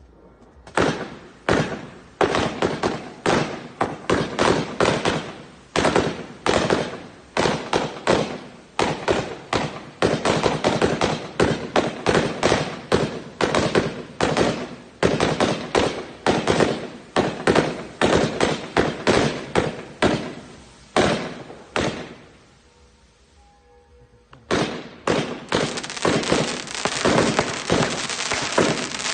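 Fireworks going off in a rapid string of sharp bangs, a few a second, starting about a second in. They break off for about two seconds near the end, then resume more densely.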